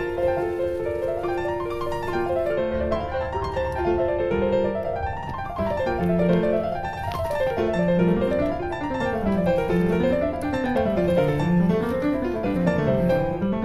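Background piano music: flowing runs of notes that rise and fall over and over, with a lower part joining the rise and fall about halfway through.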